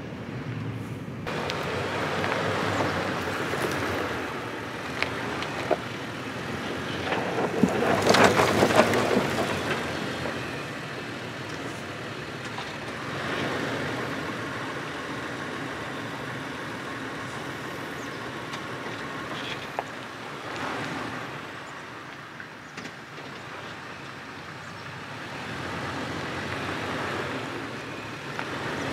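Toyota 4Runner crawling slowly over a rocky dirt trail: the engine runs at low speed while the tyres crunch over dirt and rocks, with scattered clicks. There is a louder stretch of crackling about eight seconds in.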